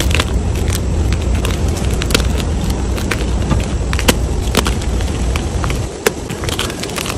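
Blocks of gym chalk being crushed and crumbled: many sharp crackles and crunches over a steady low rumble.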